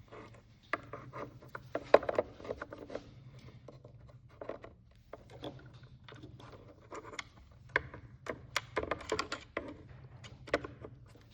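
Needle-nose pliers and a crimp-on butt-splice connector being worked onto a short wire, heard as irregular metal clicks, taps and brief scraping. A faint steady low hum runs underneath.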